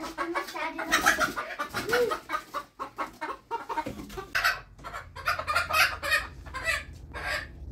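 Chickens clucking in a quick series of short calls.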